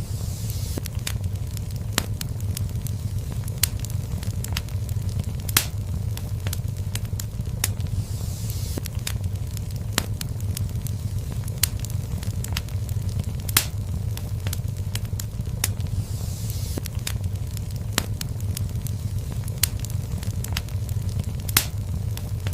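Fireplace fire crackling: a steady low rumble with dense, irregular snaps and a few louder pops about eight seconds apart, and short bursts of hiss now and then.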